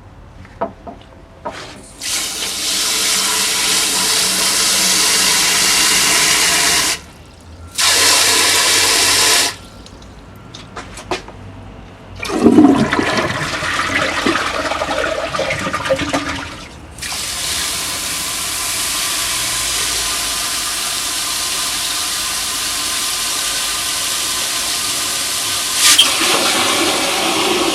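Water running into a 1974 American Standard toilet to fill it. It comes as a loud rushing hiss that starts and stops abruptly a few times, with a splashing gurgle in the middle, then runs on steadily.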